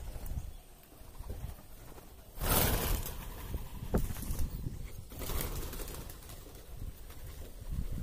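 A flock of pigeons feeding, with cooing and wing flaps as birds flutter up. A loud rustling burst comes about two and a half seconds in, with a sharp click a second later and a shorter rustle near the middle.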